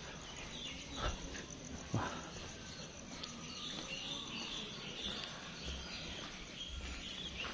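Faint outdoor ambience with light chirping, broken by two soft knocks about one and two seconds in.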